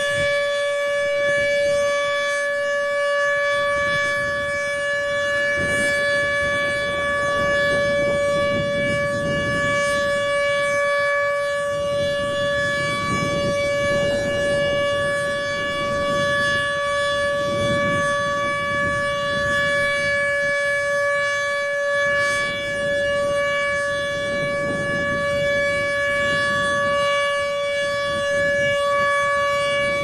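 Federal Signal Model 2 outdoor warning siren sounding its test, a loud steady tone held at a constant pitch.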